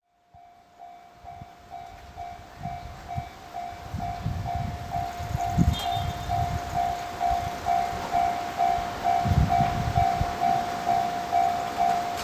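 Japanese level-crossing warning alarm ringing its repeated ding-ding, about two strikes a second, growing louder over the first few seconds, with bursts of low rumble underneath.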